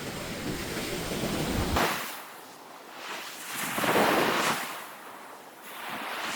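Pacific surf washing on the beach, with a wave swelling and breaking loudest about four seconds in. Wind rumbles on the microphone for the first two seconds.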